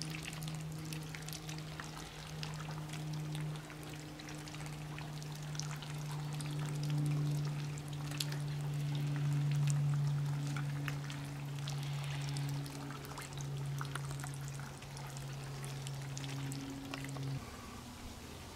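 Water pouring and trickling, with scattered small splashes, over a low steady hum that stops shortly before the end.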